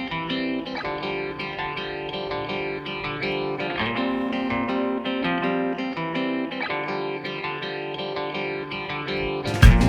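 Background music: guitar-led instrumental track with plucked notes, growing suddenly louder and fuller just before the end.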